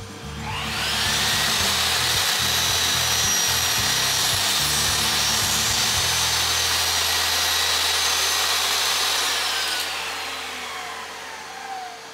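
Sliding mitre saw's motor spinning up with a rising whine, running steadily as the blade cuts through a fir board, then winding down over the last few seconds after the cut.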